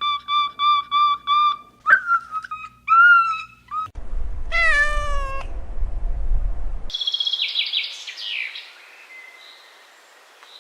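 A run of short animal calls: a quick series of brief calls, then a longer cat meow falling in pitch about halfway through, followed by high bird chirps that fade out.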